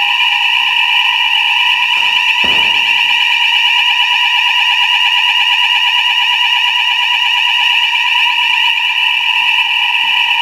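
Fire alarm sounding a continuous, steady, high-pitched tone made of several pitches at once.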